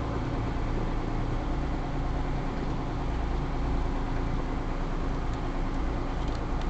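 Small river ferry's engine running with a steady, unchanging drone.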